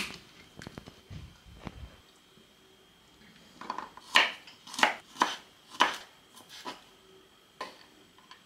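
Kitchen knife chopping garlic cloves on a wooden cutting board: a run of sharp knocks of the blade on the board, about half a second to a second apart, starting about four seconds in. Before that, a few light taps as tomato slices are handled on a ceramic plate.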